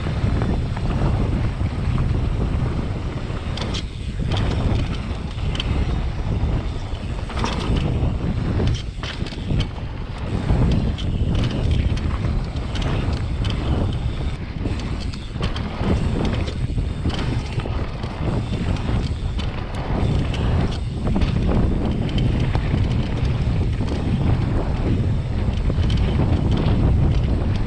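Mountain bike descending a downhill trail: wind rushing over the microphone and tyres rumbling on dirt, broken by frequent irregular knocks and rattles as the bike goes over bumps.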